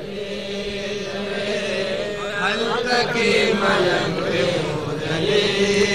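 A steady vocal drone from several men's voices, held in the pause between the sung lines of a Pashto naat, with fainter wavering voice lines above it in the middle.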